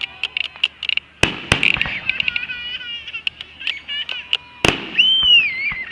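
Fireworks going off: a rapid crackle of sharp pops with three louder bangs, and high whistles, one gliding down in pitch near the end.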